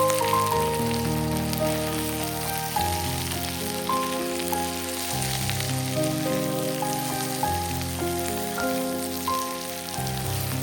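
Instrumental background music of sustained melodic notes, laid over the steady crackling hiss of potatoes and smoked salami sizzling in oil in a frying pan.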